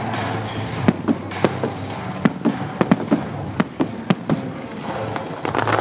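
Aerial fireworks bursting in a quick, irregular series of sharp bangs and cracks over a steady background rumble.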